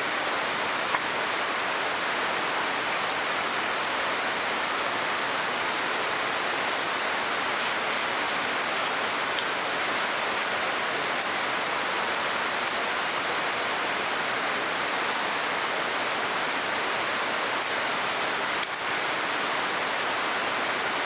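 Steady rushing of flowing water, even and unbroken, with a few faint light ticks scattered through the middle.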